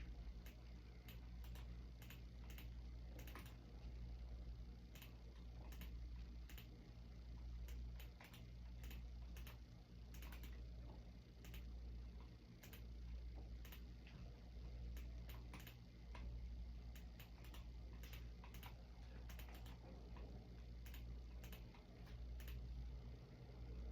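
Faint computer keyboard typing: irregular keystroke clicks in short runs and pauses, over a steady low hum.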